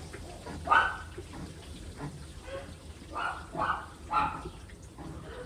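A dog barking about five times in short bursts, the first, less than a second in, the loudest, over a low steady hum.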